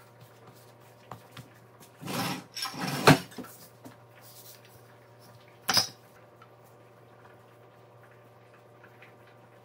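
Kitchenware clattering: a couple of seconds of rattling that ends in one loud clank, then a single shorter clank a few seconds later.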